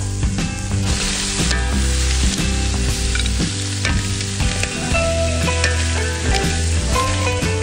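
Crab pieces and chillies sizzling in hot oil while being stir-fried, with a metal spatula scraping the pan and shells clattering as they are tossed.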